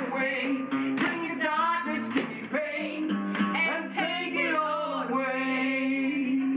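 Acoustic guitar strummed along with singing. About five seconds in, the voice settles into one long held note.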